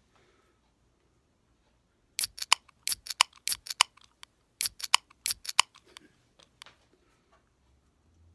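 An irregular run of about two dozen sharp clicks, coming in quick groups for about four and a half seconds, starting about two seconds in.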